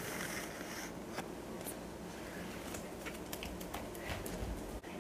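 Quiet room with faint rustling and a few soft clicks.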